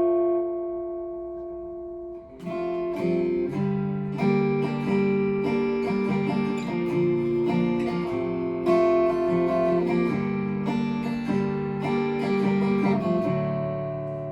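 Martin Road Series acoustic-electric guitar being played to test its repaired soundhole preamp controls: a chord fades out over about two seconds, then a run of strummed and picked chords, ending on a chord left ringing.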